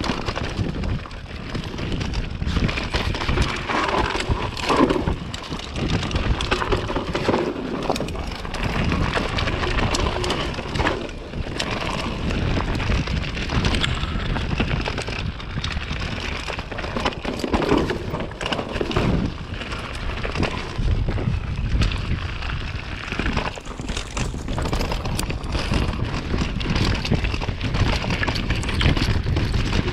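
Trek mountain bike ride downhill on muddy forest singletrack: tyres rolling over dirt, rocks and roots, with the bike rattling and knocking over the bumps and wind rushing on the microphone.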